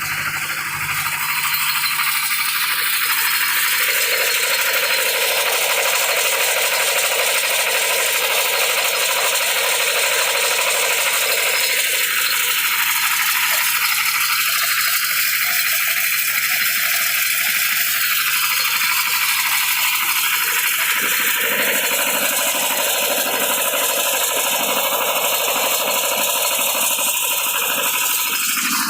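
Plastic scrap washing machine running with a steady, dense rattle.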